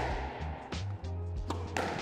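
Squash ball cracking off racket and court walls during a rally: a few sharp hits, two close together near the end. Background music with a steady bass line plays underneath.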